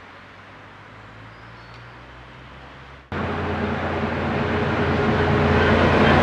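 Approaching diesel locomotive: a faint low engine hum that jumps abruptly much louder about three seconds in, then a steady low-pitched engine drone growing louder as it nears.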